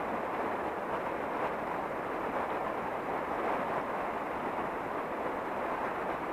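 Steady rushing of fast-flowing river water over a shallow riffle, an even hiss with no let-up.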